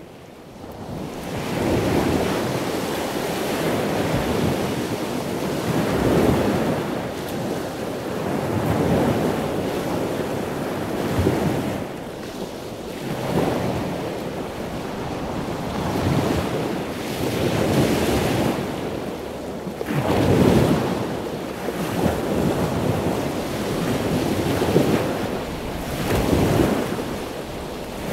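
Ocean water noise: an even rush of water that swells and fades every two to three seconds, like waves, with no animal calls standing out.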